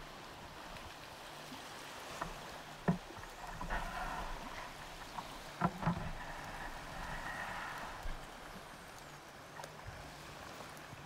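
Kayak paddling: a paddle dipping and splashing through the water, with two sharp knocks about three and five and a half seconds in.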